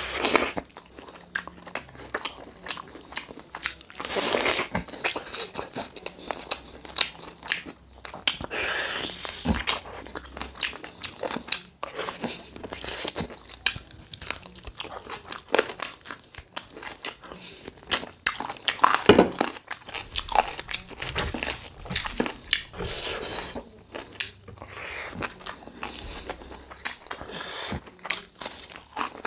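A person biting and chewing chicken drumsticks, with many short, irregular clicks and smacks of eating.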